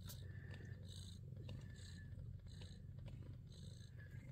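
Abyssinian cats purring steadily and softly while nursing their kittens.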